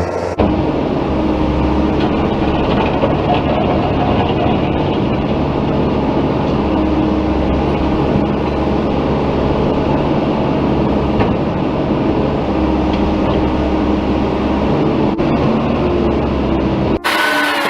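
A large vehicle engine running steadily with a low drone; it cuts off suddenly near the end.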